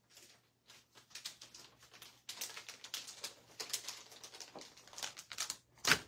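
Crinkling and crackling of a holographic plastic pouch of nail foils being handled, in many irregular small clicks, ending with a knock as it is set down on the table just before the end.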